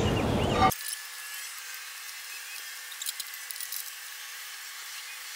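Quiet background hiss after a short, louder noisy stretch that cuts off abruptly under a second in. A few light taps come about three seconds in as a level is set on the metal wall bracket of the hose reel held against the brick.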